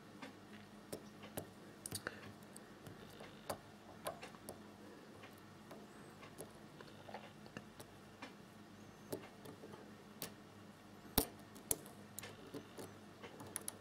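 Lock pick and tension wrench working a five-pin Baldwin pin-tumbler door lock during single-pin picking: small irregular clicks and scrapes as pins are lifted and set. The loudest click comes about eleven seconds in.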